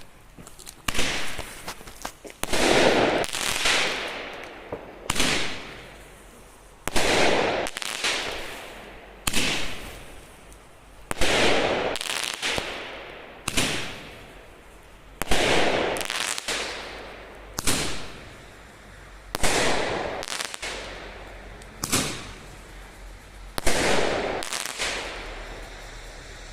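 Extreme bomb-tube firework firing a sequence of shells, about a dozen sharp reports roughly every two seconds. Some are short cracks and others are bigger bangs that trail off over a second or so.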